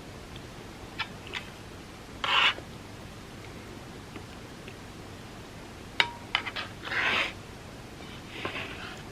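Close-miked eating sounds: a few small sharp clicks and three short crisp crackles of bites into crunchy dessert. The loudest crackle comes a little over two seconds in, another about seven seconds in, and a softer one near the end.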